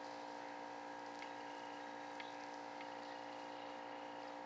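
Steady machine hum made of several steady tones, with a few faint ticks.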